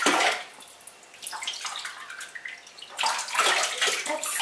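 Bath water splashing as a small dog is washed in a bathtub: a sudden loud splash right at the start, then scattered smaller splashes that grow louder near the end.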